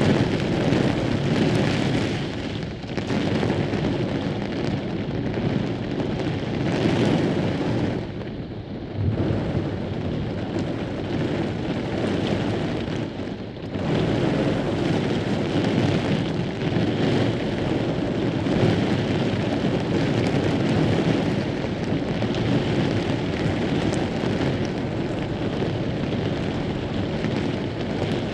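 Heavy rain and gusting wind of a severe thunderstorm, a steady loud rush that eases briefly about 3, 8 and 13 seconds in before surging back.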